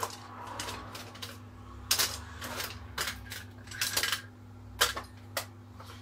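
Metal hand tools clinking and rattling at irregular intervals as someone rummages through a tool bag for a screwdriver, over a steady low hum.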